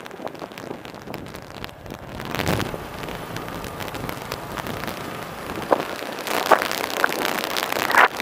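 Wind rushing and buffeting over the camera microphone on a moving motorcycle, with road noise underneath. It swells briefly about two and a half seconds in and grows louder and gustier over the last couple of seconds.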